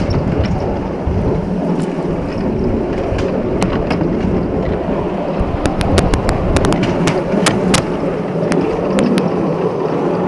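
Steady rumble of a 7¼-inch gauge electric miniature train's wheels running on the rails, heard from aboard. Scattered sharp clicks come through it, several in quick succession around the middle.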